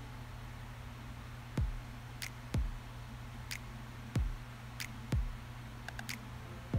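Background music: a sparse beat of deep kick drums that drop in pitch, alternating with sharp claps or snare hits, roughly one of each per second, over a low steady hum.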